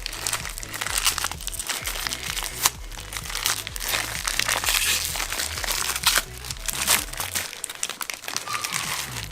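Background music with a stepping bass line that drops out about three-quarters of the way through, over irregular clicks and crinkling from parts and packaging being handled.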